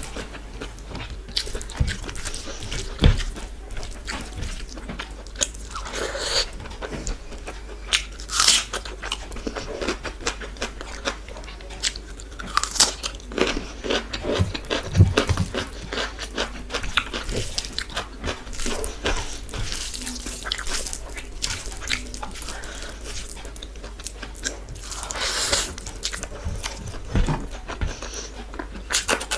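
Close-up eating sounds: a person chewing and crunching mouthfuls of rice, dal and curry eaten by hand, with irregular sharp crunches and clicks and a few louder bites, as fingers mix rice and dal on the plate.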